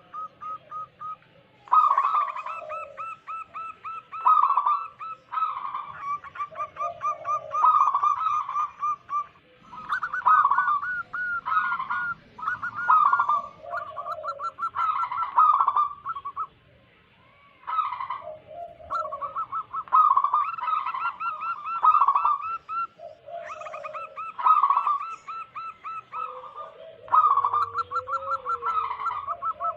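Zebra dove (perkutut) cooing: phrase after phrase of rapid, trilled coos, each a few seconds long, with short pauses between them and a silent gap of about a second and a half a little past the middle.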